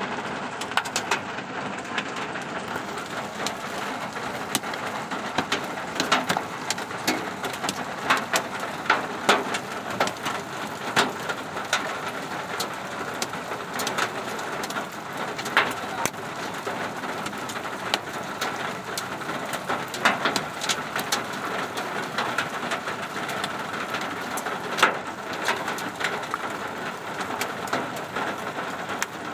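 Hailstorm: heavy rain hissing steadily on an asphalt road, with hailstones striking in many sharp, irregular clicks.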